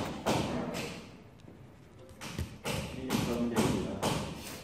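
A run of sharp knocks and thuds at irregular intervals, with a low voice murmuring briefly in the second half.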